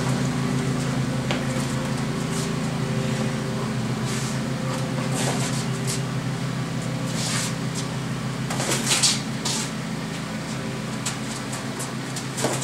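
Sparring sounds of two people, one in boxing gloves: scattered short slaps and scuffs of gloves, hands and feet on a stone patio, the sharpest about nine seconds in, over a steady low mechanical hum.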